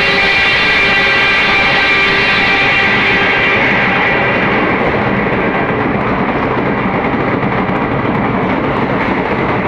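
Express train hauled by an EMD diesel locomotive passing at speed. A steady pitched tone fades out over the first few seconds, leaving the continuous rushing rumble of the train on the rails.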